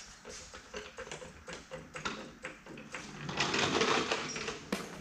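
Light metal clicks and clanks from a floor jack being worked under a steel two-post lift column. Then a louder scraping rumble of a wooden dolly rolling on concrete as it is pulled out from under the column, and a sharp knock near the end.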